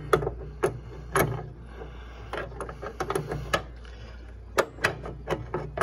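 Crescent wrench clinking and tapping against a small nut on the mower deck's engagement cable as it is worked loose: about a dozen sharp metallic clicks at an uneven pace, over a low steady hum.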